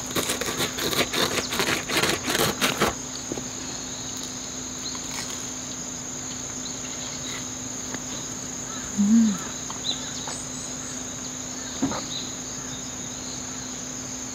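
Crickets chirring in one steady high tone throughout. In the first three seconds a quick run of clicks and crunches from eating a croffle with a fork.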